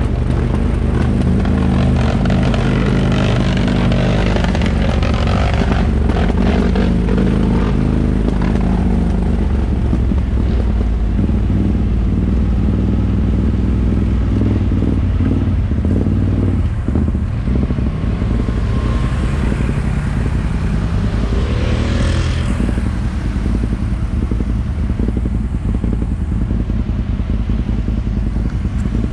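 ATV engine running steadily as the machine rides a dirt trail, with wind buffeting the camera's microphone.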